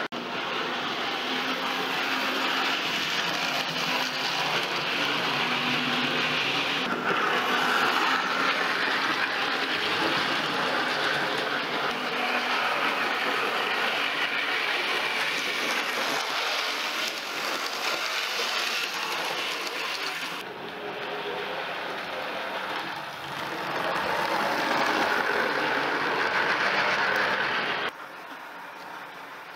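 OO gauge model train running on the track: a Great Western tank engine's small motor and its wagons' wheels running along the rails, a steady noise that stops abruptly near the end.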